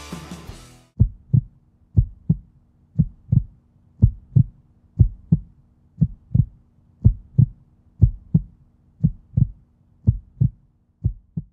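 Heartbeat sound effect: pairs of short low thumps, about one pair a second, over a faint steady low hum. It begins about a second in as music fades out.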